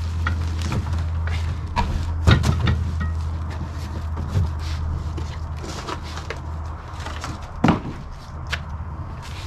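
Cardboard boxes being shifted and lifted off a wooden shipping pallet: scattered knocks and rustling, with the sharpest knock about two seconds in and another near the end. Footsteps on concrete, over a steady low rumble.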